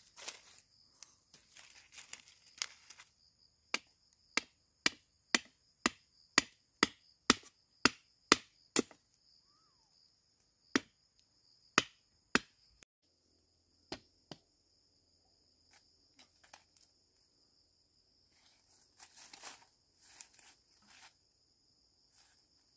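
Wood being chopped with a blade: about a dozen sharp strikes at roughly two a second, then a few scattered single strikes, with softer rustling and handling near the end. Insects keep up a steady high-pitched drone behind.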